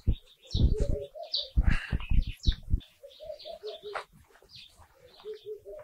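A thin wooden stick scratching and prying through a bonsai's dense root ball and loose potting soil, in uneven scrapes during the first three seconds. Behind it a dove coos a run of low, evenly repeated notes, clearest in the second half, and small birds chirp.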